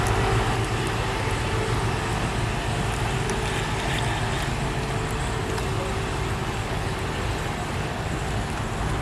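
Steady rumble and hiss of surrounding vehicle noise with a faint steady hum, with no engine sound from the all-electric Tesla being filmed.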